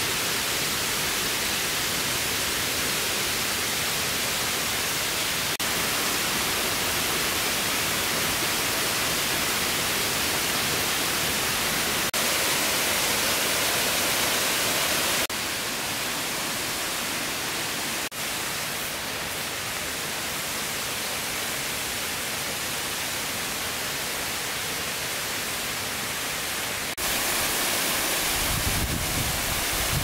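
Steady rush of falling water, changing abruptly in level several times, with a low rumble near the end.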